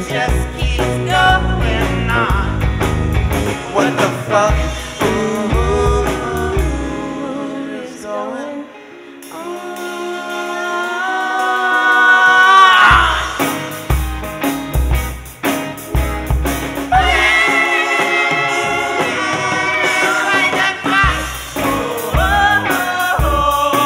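Live band playing: a singer with electric guitar, bass and drums. About eight seconds in the band drops out under a long held sung note on "on" that rises at its end, and the full band crashes back in a little after that.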